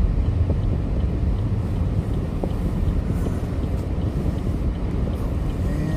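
Steady low rumble of a car running, heard from inside the cabin, with wind noise over it.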